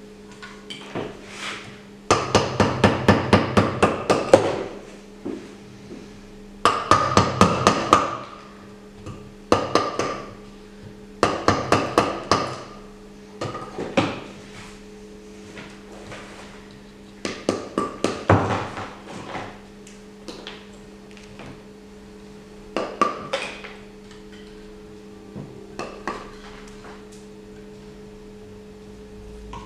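Wooden mallet striking a steel chisel into a plaster waste mold, in bursts of rapid taps with short pauses between, as the mold is chipped away from the cast inside it.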